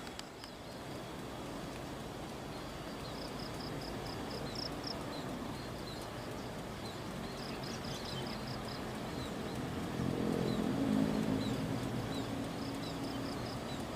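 Outdoor ambience: a steady rushing background with short high chirps repeating in quick runs, from birds or insects. About ten seconds in, a low engine hum swells briefly and then fades.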